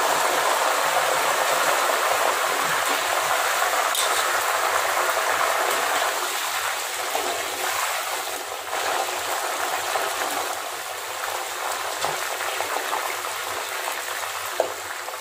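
Syrup-coated taro strips frying in a wok of hot oil: a loud, steady sizzle that begins suddenly and slowly eases off.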